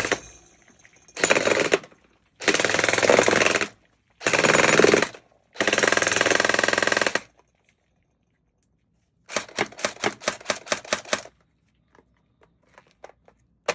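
Electric gel ball blaster, a CYMA Scar-L with a metal-toothed gearbox, firing in full-auto bursts: five bursts, the longest about a second and a half. Then a run of about ten separate shots at about five a second, and a few faint clicks near the end.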